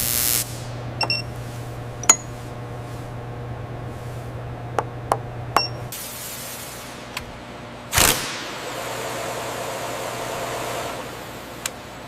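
Scattered sharp metallic clinks and taps over a steady low hum. The hum stops about six seconds in as a short hiss starts, and a heavy metallic clank about eight seconds in is followed by a hiss that fades over a few seconds.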